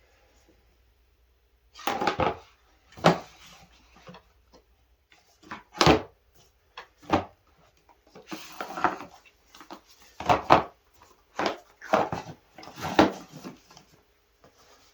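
Hands handling objects and fitting them into a display table: a string of irregular knocks, clicks and rustling scrapes with short pauses between them.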